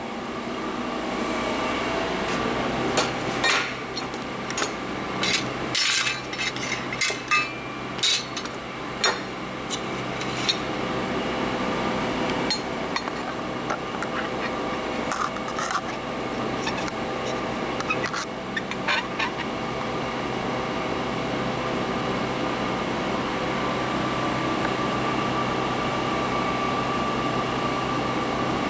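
Steady hum of a running press brake with a few fixed tones, as it idles between bends. Scattered clinks and knocks of 12-gauge sheet metal being handled come over the hum, mostly in the first third and again around the middle.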